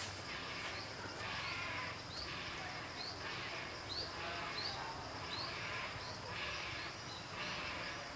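A dense chorus of wild animal calls, with a short rising chirp repeated about every two-thirds of a second over a pulsing, steady din.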